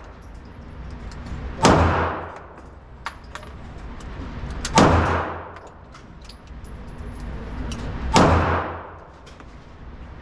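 Three loud gunshots at a shooting range, roughly three seconds apart, each trailing off in a long echo, with fainter sharp cracks in between.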